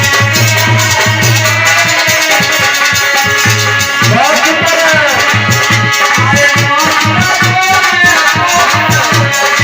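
Loud dance music with a thumping bass beat about two times a second, a shaker-like rattling percussion, and a gliding melody line over it.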